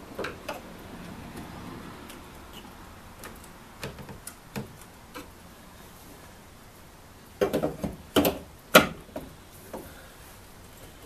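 Scattered clicks and knocks of a small pry bar working trim loose from a wooden window frame, with a run of louder, sharper knocks about seven to nine seconds in.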